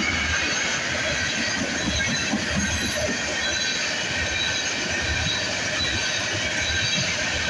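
Freight train of tank cars rolling past: a steady rumble and rattle of steel wheels on the rails, with a faint high wheel squeal throughout.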